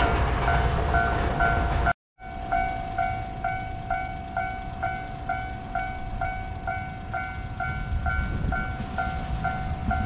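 Japanese level-crossing warning bell ringing in a steady ding-ding pattern, about two strokes a second. Over the first two seconds a loud low rumble lies under it, then there is a brief break to silence and the bell carries on over quieter background noise.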